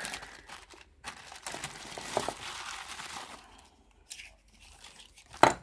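Packaging crinkling and rustling as it is handled and opened, with small clicks, fading after about three seconds; a single sharp knock near the end.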